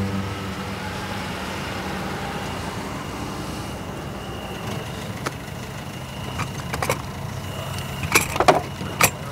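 A motor vehicle's engine idling steadily, with scattered clicks and knocks that come more often in the last couple of seconds.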